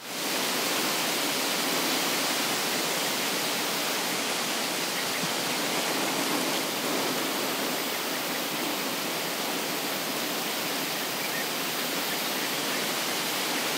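A steady, even rushing noise that fades in at the start and holds level.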